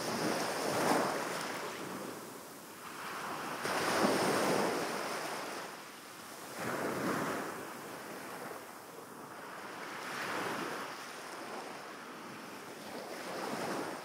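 Sea waves washing onto a shore, surging and receding in five swells about three seconds apart.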